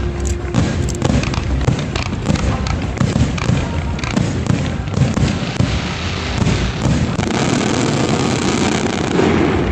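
Fireworks going off in quick succession: a steady run of bangs from aerial shells and low-level effects. Near the end the reports come so fast that they run together into one continuous rattle.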